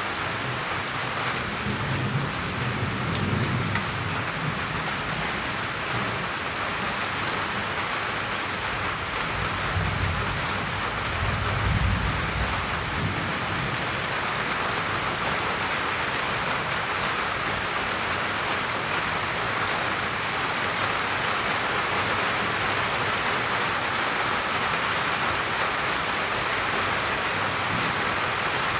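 Steady rain falling, heard from under a roof, an even hiss that does not let up. Twice a low rumble swells and fades under it, a few seconds in and again around the middle.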